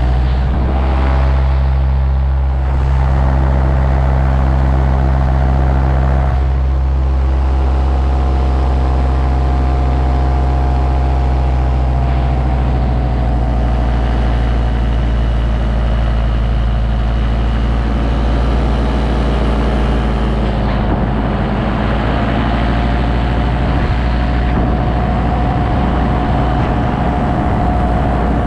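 Paramotor engine and propeller running steadily in flight, a loud drone whose pitch dips slightly and comes back up about two-thirds of the way through.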